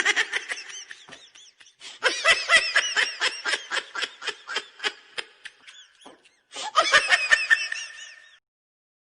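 High-pitched laughter sound effect: three bouts of rapid, rhythmic laughing, about five laughs a second, each bout trailing off, with short pauses between them.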